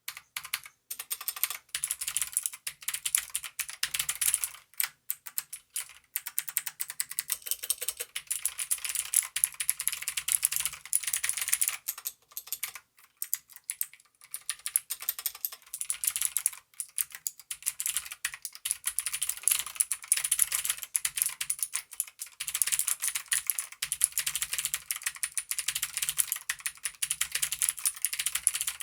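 Typing on an Aukey mechanical keyboard with Outemu blue clicky switches: a dense, fast stream of sharp key clicks with a few brief pauses.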